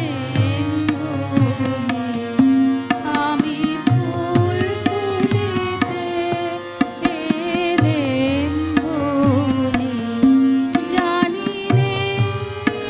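Live Indian classical-style instrumental music: a violin plays a wavering melody with vibrato over a steady drone, with drum strokes beneath.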